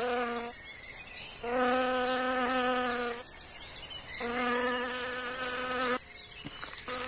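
A wasp's wings buzzing in flight, a steady even-pitched drone that comes and goes as it passes: a short burst at the start, two longer passes of about two seconds each, and a brief one near the end.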